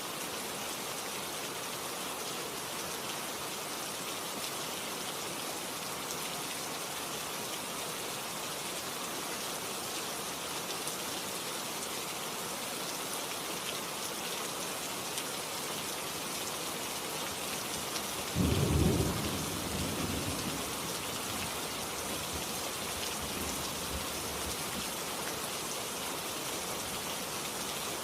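Steady rain falling. About two-thirds of the way through, a single roll of thunder breaks in, the loudest sound here, and rumbles away over a couple of seconds.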